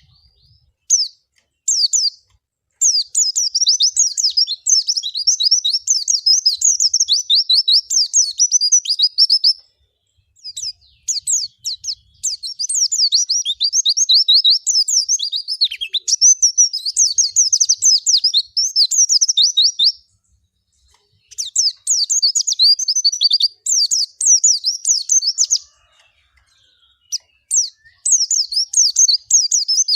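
White-eye (pleci) singing: long phrases of rapid, high, chattering twittering notes, broken by short pauses of a second or two.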